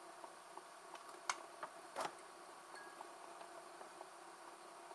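Small homemade DC motor-generator rig running faintly: a low steady hum with a light tick repeating about three times a second. A few sharper clicks come between about one and two seconds in.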